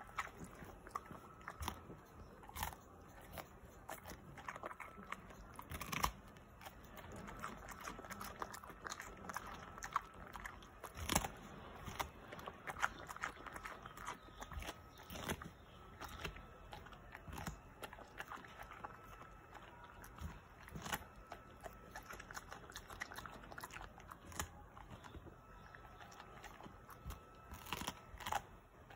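A Samoyed biting and chewing a raw cucumber, with crunches at irregular intervals, the loudest about six and eleven seconds in.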